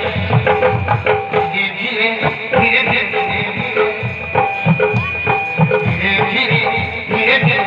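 Koraputia Desia folk dance music: hand drums beat a fast, steady rhythm under a melody, with one long high note held through the middle.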